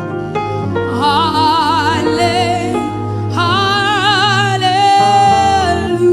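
Gospel worship music: a voice sings two long wordless phrases with a wide vibrato over sustained backing notes.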